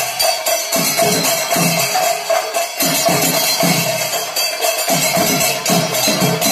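Festival procession percussion ensemble playing: repeated drum strokes over continuous ringing cymbals, with a steady held tone running through.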